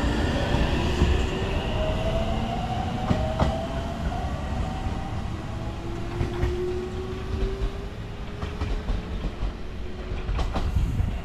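JR Central 313 series electric train pulling away and accelerating: a whine rising in pitch from its traction motors over the rumble of the wheels, with a few clicks as the wheels cross rail joints. It gradually fades as it moves off down the line.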